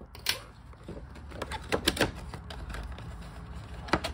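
A cardboard toy box being handled and opened by hand: card rubbing and rustling, with scattered sharp clicks and taps of the flaps, a cluster about two seconds in and another near the end.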